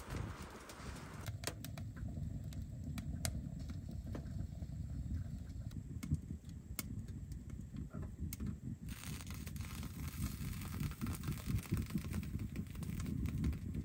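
Wind buffeting the microphone as a fluctuating low rumble, with scattered sharp clicks and crunches. About nine seconds in, a steadier hiss of wind joins it.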